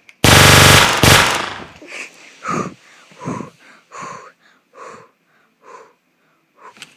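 A loud distorted burst about a quarter of a second in, lasting over a second, then heavy breathing close to the microphone, about six breaths at a steady pace.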